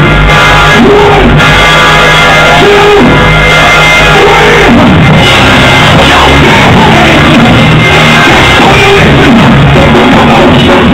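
Live church music played very loud: a band with guitar and bass under voices singing and shouting.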